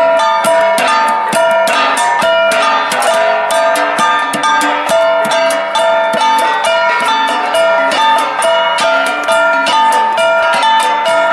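Cordilleran flat bronze gongs (gangsa) played as an ensemble, struck in a rapid, steady beat, with several ringing pitches interlocking.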